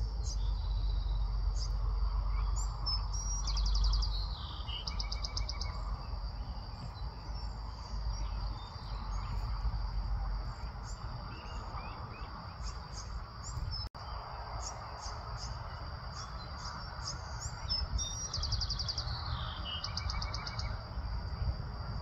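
Birds chirping, with two quick high trills of rapidly repeated notes, one a few seconds in and one near the end, over a steady high-pitched insect drone. A low rumble sits underneath, strongest in the first few seconds.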